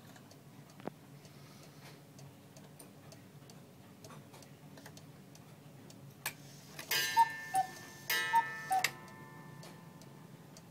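Cuckoo clock ticking steadily. About six seconds in a click, then the cuckoo calls twice, each call a high note falling to a lower one with a puff of bellows noise, as the minute hand reaches the hour.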